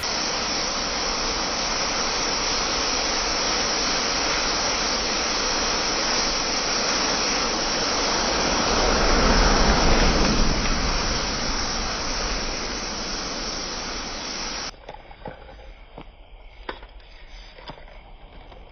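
Large mass of burning matches going up in flames: a steady rushing roar of fire that swells about nine to ten seconds in and then slowly fades. About fifteen seconds in it cuts to a much quieter stretch with scattered small crackles and ticks.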